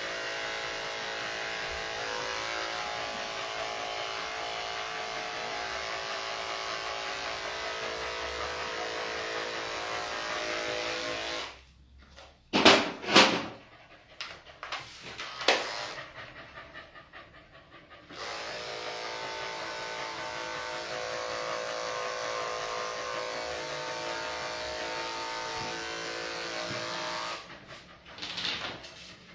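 Electric dog-grooming clippers running with a steady hum as they are passed over the dog's coat. They stop about eleven seconds in, leaving a few short loud sounds and the dog panting, then run again for about ten seconds and stop near the end.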